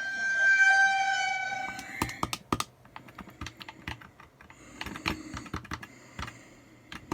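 A held ringing tone for about two seconds, then computer keyboard typing and clicking in irregular runs.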